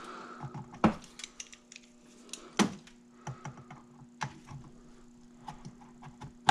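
Pliers and plastic and metal engine parts clicking and clacking irregularly as a fitting is worked on by hand, with three sharper knocks along the way.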